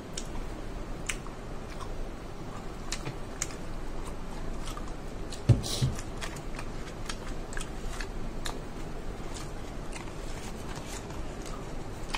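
Close mouth sounds of someone chewing and eating a corn dog: scattered small clicks and smacks, with one louder thump about five and a half seconds in.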